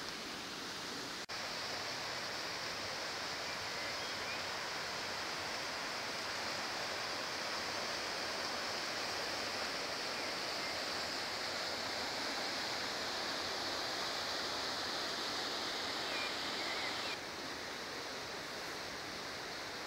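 Steady rush of river water flowing over rocks. There is a brief click about a second in, and the wash turns slightly quieter and duller near the end.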